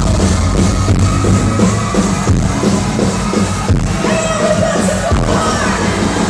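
Loud live electronic dance music from a festival sound system, with a steady bass beat and some singing, recorded distorted and boomy.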